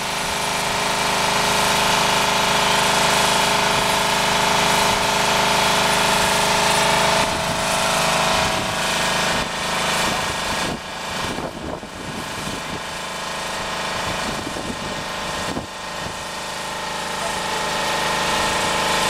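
Fire truck engine running steadily at constant speed, with a steady drone. The drone eases off a little about eight seconds in.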